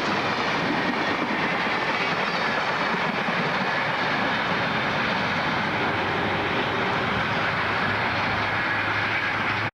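A train's steady rushing noise, even and unbroken, with a low hum joining in near the end.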